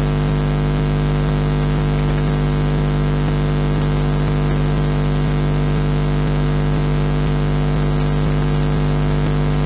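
Steady electrical hum with several fixed tones, the interference of a camera's audio line, over a constant hiss, with scattered faint crackles a few times.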